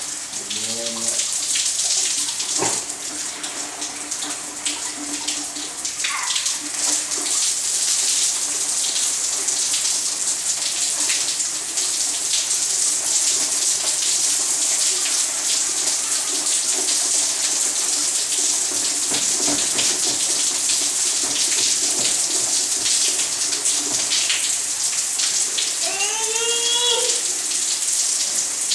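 Heavy rain pouring down and splashing on hard ground in a steady, loud hiss. A small child's voice calls out briefly at the start and again, with rising and falling pitch, near the end.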